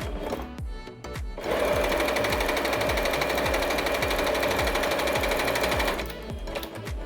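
Yamata digital sewing machine running a straight stitch, starting about a second and a half in and stopping about a second before the end, with fast, even needle strokes. It makes some noise, which the owner puts down to it being a Chinese-made machine. Background music plays throughout.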